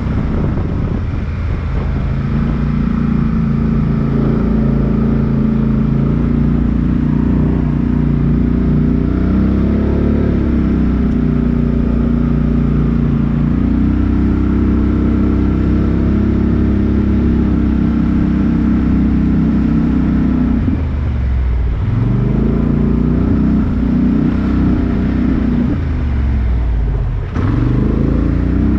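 Off-road vehicle engine running under load, its pitch rising and falling as the throttle is worked. It drops off sharply twice, about two-thirds of the way through and again near the end, and revs back up each time.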